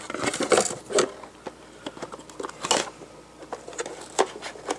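Irregular plastic clicks, knocks and rustling as the media basket of an AquaClear hang-on-back aquarium filter is handled and a mesh bag of filter media is pushed into it by hand.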